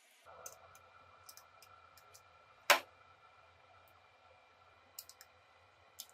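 Small plastic parts being handled during a plug repair: light scattered clicks, and one sharp, much louder click about two and a half seconds in.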